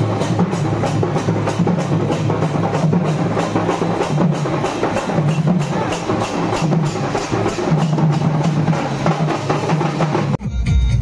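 Live folk percussion band of drums and metal hand cymbals playing a fast, steady beat, about three strokes a second. About ten and a half seconds in it cuts off abruptly and electronic dance music with a heavy bass takes over.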